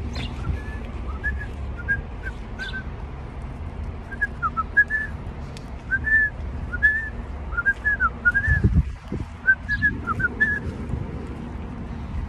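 A man whistling a tune through pursed lips: a string of short notes that rise and fall. Wind buffets the microphone throughout, with a stronger gust about nine seconds in.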